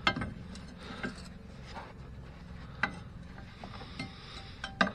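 Crowbar levering a lower suspension ball joint out of the hub's split clamp: low metal scraping with a few short, sharp metallic knocks spread through, the clearest about a second in, near three seconds and just before the end.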